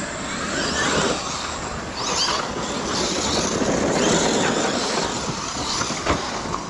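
Large electric RC cars running, their brushless motors whining and gliding up and down in pitch over a steady noise.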